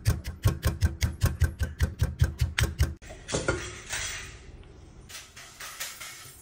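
Stone pestle pounding garlic and green chillies in a stone mortar, a steady run of about four to five strokes a second that stops abruptly about three seconds in. Quieter rustling follows.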